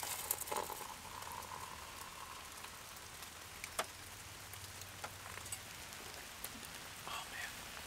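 Steady patter of rain, with hot water poured from a small stainless pot into a mug, the trickle heard mostly in the first couple of seconds. A few sharp drips tick through it later.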